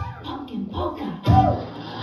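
Dance music with a steady beat cuts off at the start, followed by a few short vocal sounds, the loudest a rising-then-falling call about a second and a half in.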